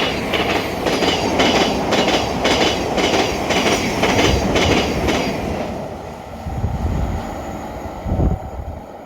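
Passenger train running past on the rails, its wheels clattering over the rail joints about twice a second. About five seconds in the clatter stops and the train noise fades away.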